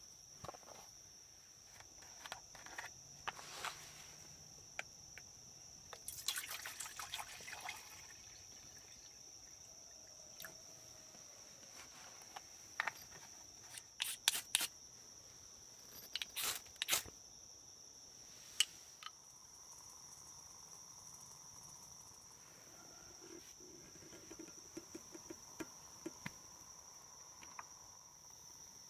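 Insects calling in a steady high-pitched drone, with scattered clicks and knocks of camp gear being handled, a few of them in quick clusters.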